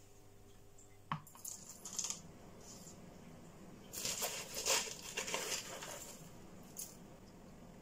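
Dry Douglas fir bark chips and grit clattering and crunching as potting mix is handled into a small plastic pot. A sharp knock comes about a second in, then light rustles. The busiest rattling runs from about four to six seconds, with a last click near seven seconds.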